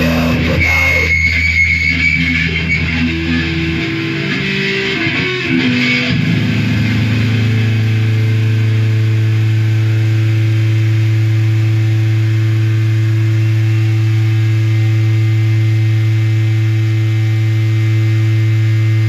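Electric guitar and bass notes ringing out and changing for a few seconds. About six seconds in they give way to a steady, loud electric hum from the amplifiers.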